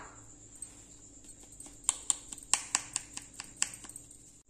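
Plastic mesh sieve being tapped and jiggled on the rim of a mixing bowl, a quick run of about nine light clicks, roughly four or five a second, in the second half, shaking flour through the mesh while sifting.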